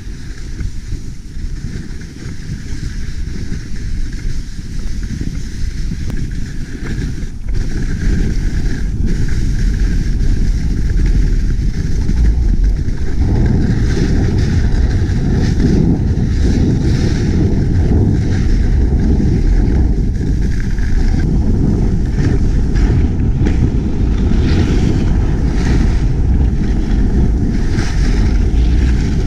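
Wind rushing over a helmet or handlebar camera's microphone on a fast ski-bike descent, mixed with the skis hissing and scraping over packed snow. It grows louder about eight seconds in and again about thirteen seconds in, with a few knocks from bumps in between.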